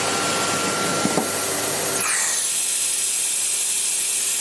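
CNC router running a chamfering pass on sheet aluminium, with its vacuum hold-down pump and dust extractor making a steady loud hiss. About two seconds in the sound changes abruptly and a high steady whine comes in.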